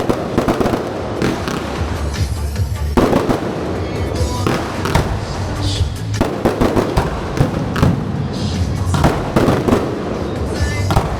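Aerial fireworks going off in dense crackling clusters of bangs every second or two, with music playing underneath.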